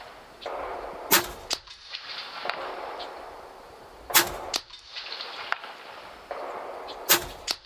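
Edgun Leshiy 2 PCP air rifle fired three times at maximum power with its suppressor off: loud sharp cracks about three seconds apart, each followed a fraction of a second later by a fainter click.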